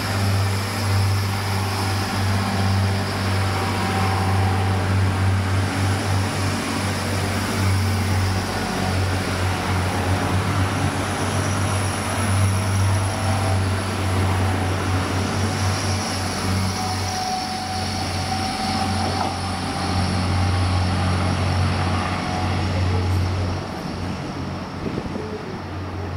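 Passenger train passing close by: a steady low drone under the rumble and hiss of wheels on the rails. It eases off near the end as the train moves away.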